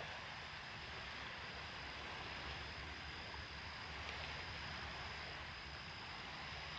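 Steady road and engine noise heard from inside a moving camper van: a low rumble under a constant hiss, with a thin high whine.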